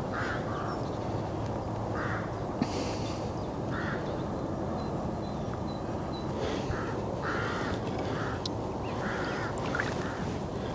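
Birds giving about ten short, harsh calls, most of them in the second half, over a steady rush of wind noise.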